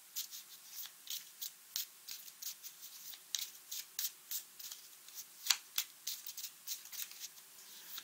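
A deck of tarot cards being handled for a draw: light, irregular card snaps and rustles, about three or four a second, with one sharper snap about five and a half seconds in.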